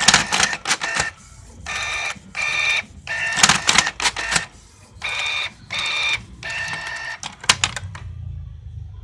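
Small homemade numbering machine working through repeated cycles. Each cycle is two short motor whirs followed by a clatter of sharp clicks, about every three seconds. It stops a little before the end.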